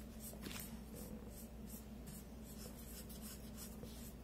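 Felt-tip markers scribbling on paper in quick back-and-forth colouring strokes, faint, over a steady low hum.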